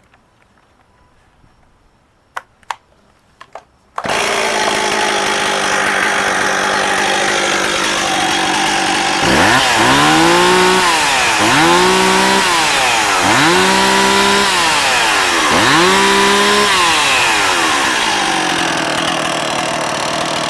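Stihl MS260 two-stroke chainsaw: a few faint clicks, then the engine starts suddenly about four seconds in and runs at idle. It is then revved four times, each rev rising, held briefly at high speed and dropping back, before settling to idle again.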